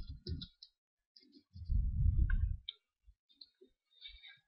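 Computer keyboard typing and mouse clicks: scattered light clicks. A muffled low noise on the microphone lasts about a second in the middle.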